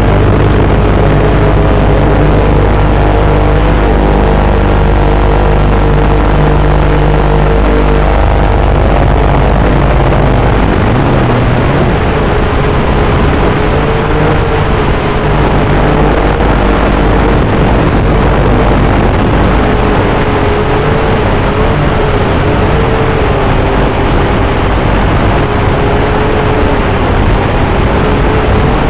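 Syma X8C quadcopter's upgraded X8HC motors and propellers running in flight, heard as a loud, steady hiss-laden drone. A low hum drops away about a third of the way in, and after that a fainter tone wavers up and down in pitch.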